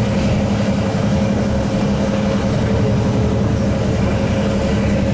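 Clyde-built Da class diesel-electric locomotive's EMD 567 two-stroke V12 engine working steadily under load as the train climbs, a steady drone with a pulsing low end, with train running noise beneath.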